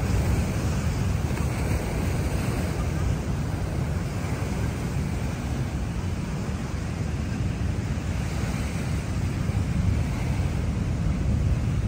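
Surf breaking and washing up a sandy beach, a steady wash of noise, with wind buffeting the microphone in a low rumble.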